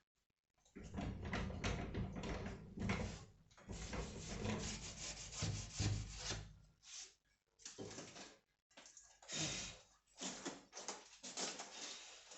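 Irregular scraping and rubbing of materials being worked by hand. There is a dense run of strokes for the first few seconds, then shorter separate strokes with brief gaps.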